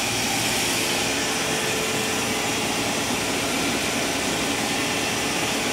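Spindle of a 1986 Kuraki KV-1000 vertical machining center running at its top speed of 4,000 RPM: a steady, even whir with a faint constant tone over a hiss.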